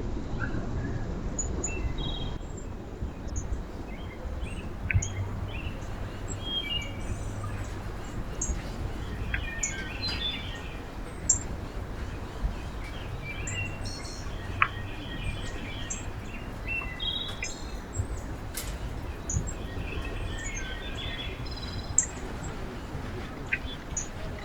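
Small songbirds chirping and calling, with many short high chirps and brief trills scattered throughout, over a steady low background rumble.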